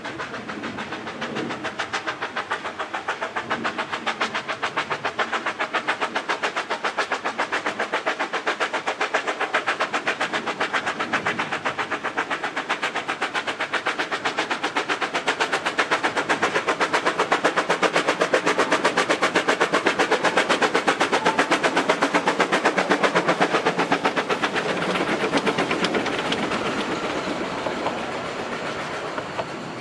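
Two Vale of Rheidol narrow-gauge 2-6-2T steam tank locomotives working double-headed, their rapid exhaust beats growing louder as the train approaches. Near the end the coaches and wagons roll past with a clatter of wheels on rail as the chuffing fades.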